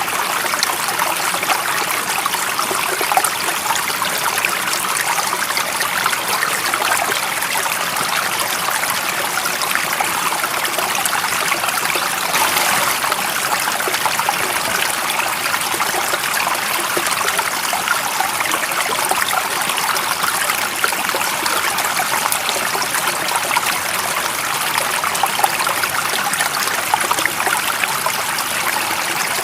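Stream of water running steadily: an even, unbroken rush, mostly high and bright with little low rumble.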